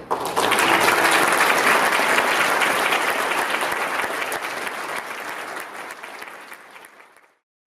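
A congregation applauding. The clapping starts at once, slowly fades, and stops abruptly near the end.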